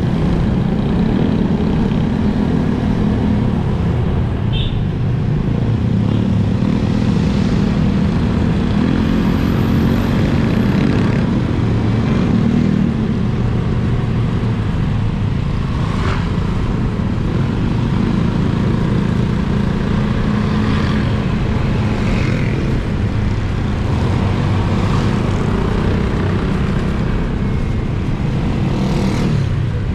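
Motorcycle engine running steadily under way, heard with a low rumble of wind on an action camera's foam-covered built-in microphone.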